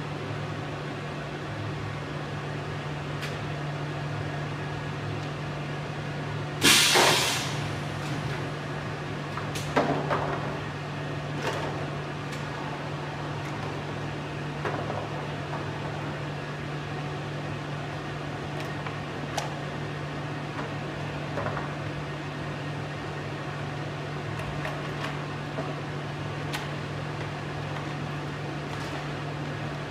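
High-frequency plastic sealing machine humming steadily, with one short, loud hiss about seven seconds in. Scattered clicks and knocks follow as clear plastic blister packs are handled on its sliding tray.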